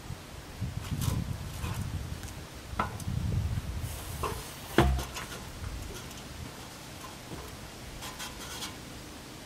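A large cardboard Sonotube concrete form rubbing and scraping as it is handled and lowered into a footing hole, with a sharp knock about five seconds in and a few faint clicks near the end.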